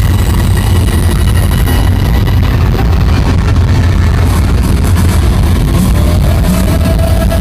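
Live rock band playing loudly, with a heavy boom in the bass and no singing.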